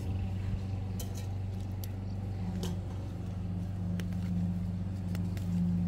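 Steady low hum of a running motor or engine, unchanging throughout, with a few faint clicks and rustles over it.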